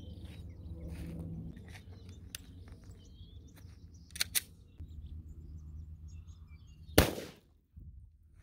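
A single shot from a Glock 31 pistol firing a 147-grain .357 SIG round, a sharp crack with a short echo about seven seconds in, after which the sound briefly drops out. Before it, faint bird chirps and two small clicks.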